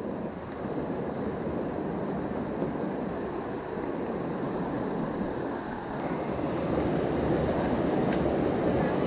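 Shallow stream rushing over rocks and boulders: a steady wash of water noise, a little louder from about six seconds in.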